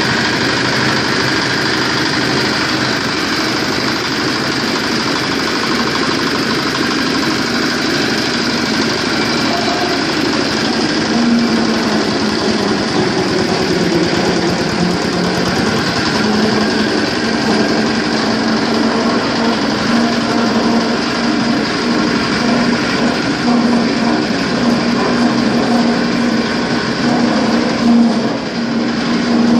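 Small single-cylinder diesel engine running steadily, driving an areca-nut splitting machine through belts and pulleys. Areca nuts are poured into the hopper partway through, and a low hum comes and goes in the machine's sound from then on.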